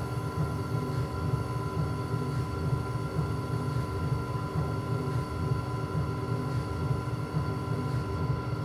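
Electric potter's wheel running steadily under a thrown clay piece: a constant low motor rumble with a faint steady whine above it.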